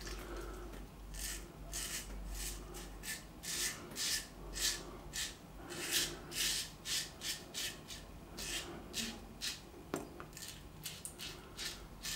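Wilkinson Sword TTO double-edge safety razor with a Dorco Titan blade scraping through lathered stubble in short, quick, repeated strokes, about two to three a second.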